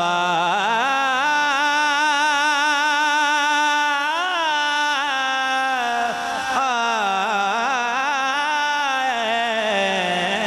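A man's solo voice singing a naat, drawing out long wavering notes on a vowel with ornamented turns and slides. There is a brief break for breath about six and a half seconds in, and the line sinks lower near the end.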